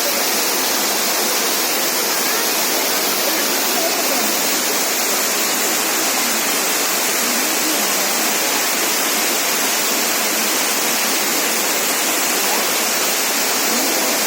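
Cheeyappara Waterfall: a steady, even rush of falling and splashing water.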